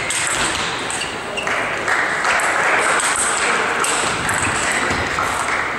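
Table tennis rally: the ball clicking back and forth off rackets and the table, over the steady noise of a busy hall with other tables in play.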